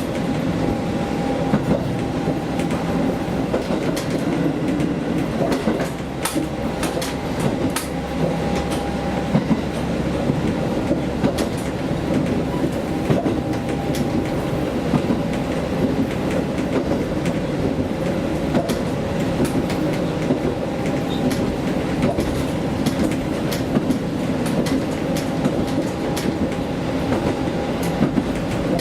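KiHa diesel railcar running steadily along the line: a continuous engine and running drone, with wheels clicking over rail joints now and then.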